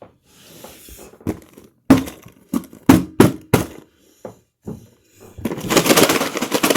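A cardboard Lego set box being forced open by hand: a string of sharp knocks and taps, then about a second and a half of dense crackling rustle near the end.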